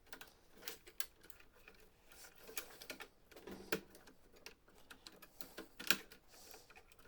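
Scattered clicks and light knocks of a screwdriver and hand handling on plastic and metal printer parts as the replacement main motor is screwed into the frame.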